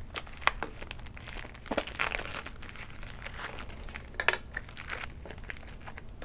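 Clear plastic packaging on a cardboard backing being cut and peeled open: crinkling and tearing plastic with scattered small clicks, and one sharper crack a little over four seconds in.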